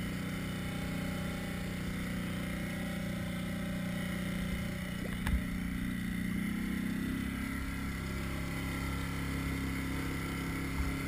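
A steady motor hum that steps slightly higher in pitch about halfway through, over water churning in a fishing boat's livewell, with a single knock about five seconds in.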